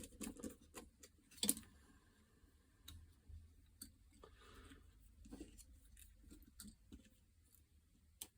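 Faint, scattered clicks and taps of small plastic and metal parts being handled, with a sharper click about one and a half seconds in and another near the end.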